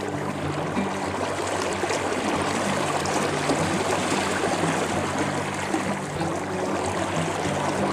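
Fast river current rushing past close to the microphone, a steady wash of moving water.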